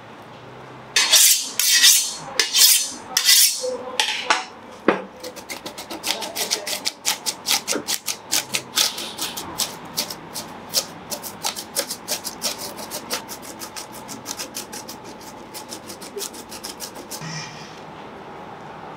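Large two-handled curved mincing knife (a Turkish zırh) working parsley, red pepper and garlic on a cutting board. It starts with a few long scraping strokes, then rocks into rapid chopping taps about five a second that gradually thin out, and ends with one more scrape as the chopped pile is gathered.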